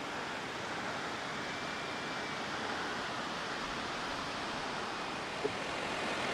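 Steady, even outdoor rushing noise with a single short click about five and a half seconds in.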